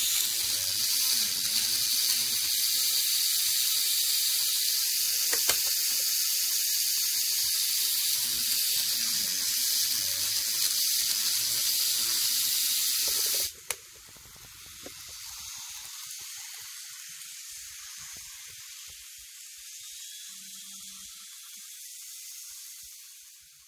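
KATO N-gauge KiHa 82 series model train running on its track: a steady high hiss of wheels and motor. It drops sharply to a quieter hiss about 13 seconds in.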